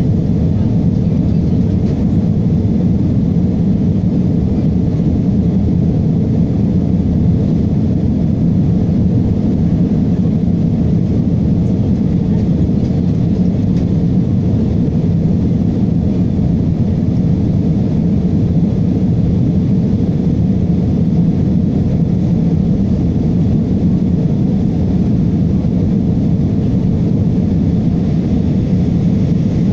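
Steady cabin noise of an Airbus A320 airliner in flight, heard from a window seat: engine and airflow noise, an even, low-pitched rush that neither rises nor falls.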